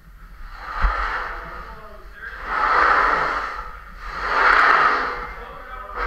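A person breathing hard and loud, close up, from the effort of hauling a heavy steel beam: about four long, heavy breaths, one every second and a half or so, with a dull thump about a second in.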